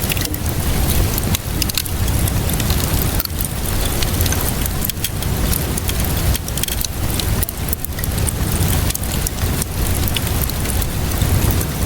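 Wood fire in a fireplace crackling, with frequent sharp pops and snaps over a steady low rumble of burning.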